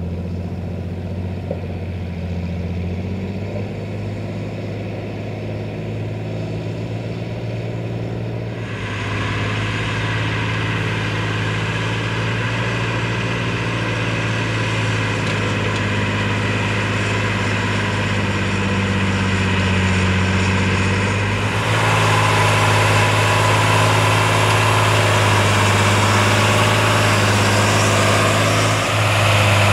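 John Deere 8200T track tractor's 8.1-litre inline six-cylinder diesel running steadily under load as it pulls a Lemken plough through mud. The sound grows louder and brighter in two steps, about a third of the way in and again about two-thirds of the way in.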